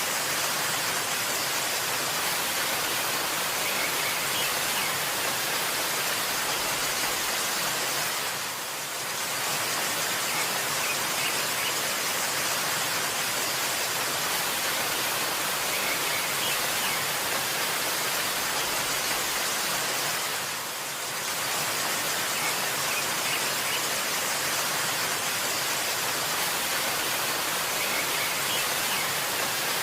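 Waterfall: a steady rush of falling water that dips briefly in level twice, about 8 and 21 seconds in, with a few faint high bird chirps.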